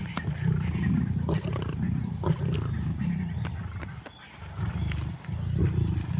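Young lions growling low and continuously while mauling an elephant calf, with a short lull about four seconds in.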